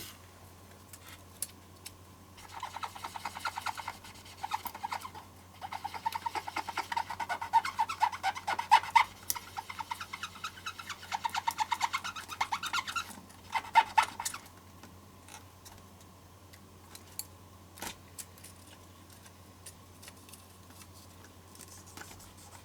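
Rapid crackling and rustling of a thin plastic Spectrum keyboard membrane being flexed and handled, in runs of dense crackle for several seconds, then a short burst and scattered light ticks. The membrane is rotten, its conductive tracks worn away. A faint steady low hum sits underneath.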